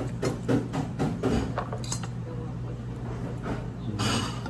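Cutlery clinking against dishes during a meal: a cluster of light clinks in the first two seconds and a few more later, over a steady low hum.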